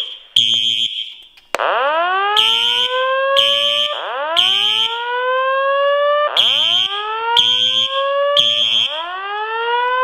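Simplex electronic fire alarm horn sounding the temporal-3 pattern: three half-second blasts, a pause, then three more. From about a second and a half in, a slow whoop evacuation tone plays over the voice-evacuation speaker alongside it, each whoop rising in pitch and repeating about every two and a half seconds.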